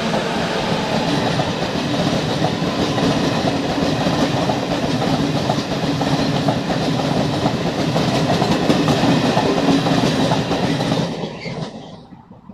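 A Renfe train passing close by at speed, its wheels and cars running loudly over the track for about eleven seconds, then dying away near the end as it goes past.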